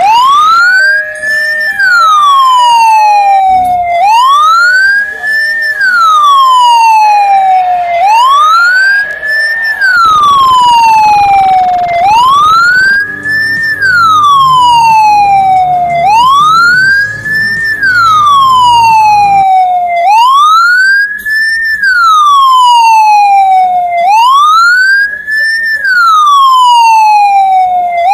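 Ambulance siren sounding a loud, slow wail: the tone climbs for under two seconds, then falls back for a little over two, repeating every four seconds, about seven times.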